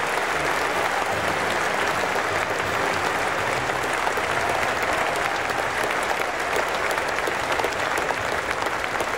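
Large stadium crowd applauding steadily, a dense, even wash of many hands clapping.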